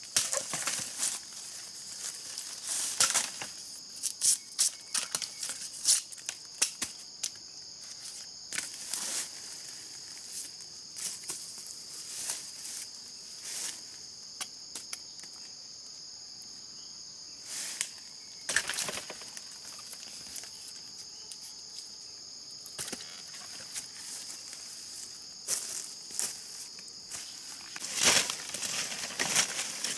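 Insects droning with a steady high buzz, over irregular sharp snaps, crackles and tearing of plant stalks and leaves being handled. The snaps come thickest near the start and again near the end.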